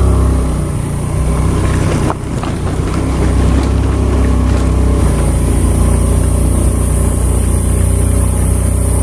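Motorcycle engine running steadily while being ridden, with a brief dip in level about two seconds in.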